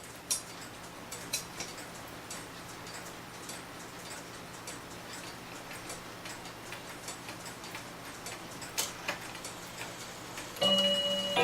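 Seikosha schoolhouse pendulum clock ticking steadily. Near the end, another clock starts playing a tune of chime-like tones.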